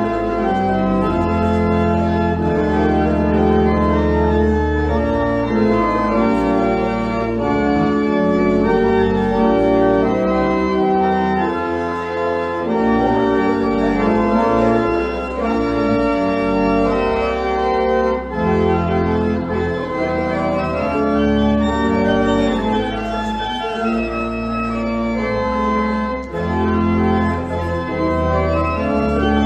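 Organ playing held chords over a low bass line, the chords changing every second or two.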